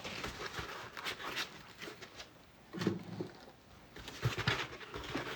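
Packaging being handled: scattered rustles, scrapes and light clicks as plastic parts are pulled from foam inserts and set down.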